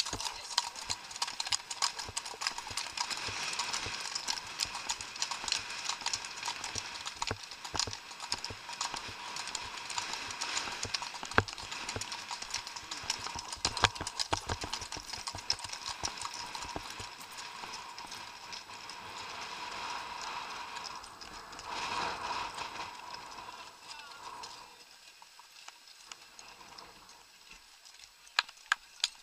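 Rapid, continuous hoofbeats of a ridden horse moving fast on a dirt and gravel track, over a steady hiss. About 25 seconds in, the hoofbeats and hiss drop away and it goes much quieter as the horse slows among the other riders.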